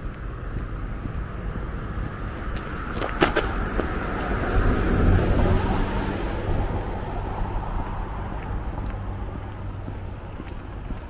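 A car driving past, swelling to its loudest about five seconds in and then fading away, with a sharp click just before it comes close.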